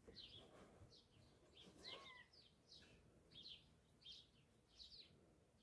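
Faint chirping of small birds: short, high, downward-sweeping chirps repeating about twice a second, with one longer arched whistle about two seconds in.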